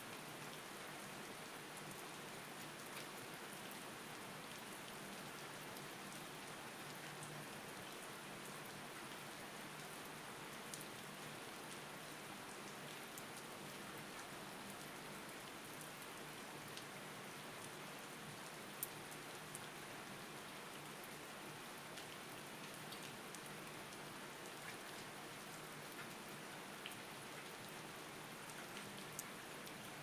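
Steady rain falling, an even hiss with scattered sharp drop ticks, the loudest about two-thirds of the way through.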